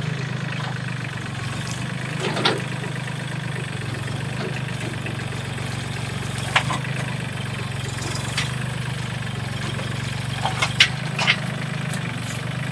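Forklift engine idling steadily, with a few short, sharp knocks and clicks over it.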